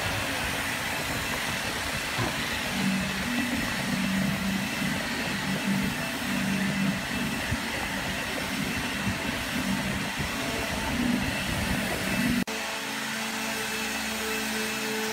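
Steady workshop machinery noise with a low hum that swells and fades unevenly. About twelve seconds in it changes abruptly to a steadier hum made of a few even tones.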